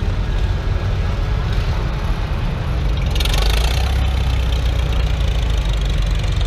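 Vintage farm tractor engines running as the tractors pass slowly. A red Farmall is the loudest as it goes by close, about halfway through. A brief hiss comes about three seconds in.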